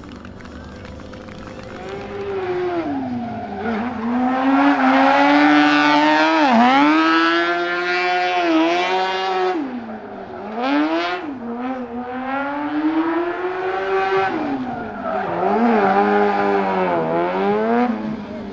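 Honda Hornet 600 inline-four motorbike engine in a modified Piaggio Ape three-wheeler, revved hard while drifting. It comes in loud about two seconds in, and its pitch climbs and drops sharply again and again as the throttle is blipped and held.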